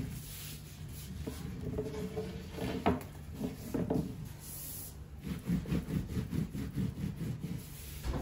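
Long thin wooden rolling pin (oklava) rolling and rubbing over a sheet of paper-thin baklava dough on a wooden tabletop, with a few light knocks near the middle.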